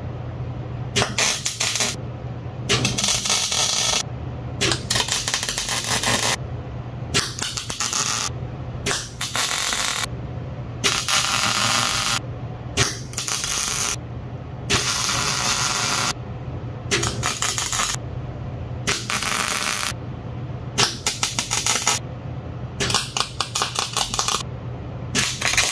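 Wire-feed (MIG) welder laying short stitch welds on a Dana 60 axle housing: a string of crackling arc bursts, each about one to two seconds long with brief pauses between, over a steady low hum. The welds go on in short stitches, slowly, to keep heat from moving or warping the housing.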